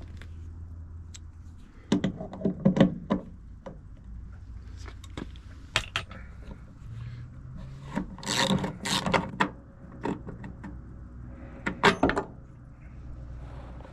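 Hand tools clicking and rattling in several short bursts, like a ratchet with a T50 Torx bit working the bolts of a worn truck door striker.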